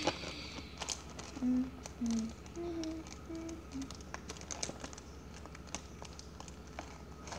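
A child hums a run of five or six short notes starting a little over a second in, while a foil Pokémon card pack crinkles and ticks as it is worked open.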